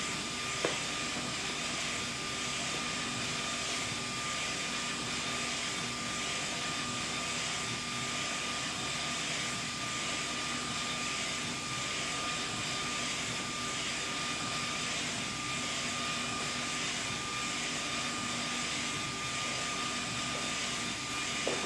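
SK UV6145 UV inkjet printer running: a steady mechanical whir and hiss with a constant high-pitched hum, and a single click under a second in.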